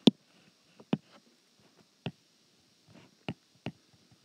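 Stylus tapping on a tablet screen while handwriting: about six sharp, irregular clicks, the first one the loudest.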